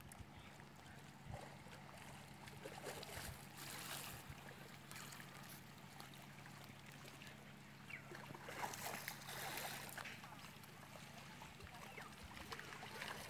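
Faint seaside ambience: small waves lapping under a steady low hum, with brief distant voices, loudest a little past the middle.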